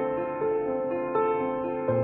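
Background music: slow, soft instrumental with held notes, a new note or chord entering about every three quarters of a second.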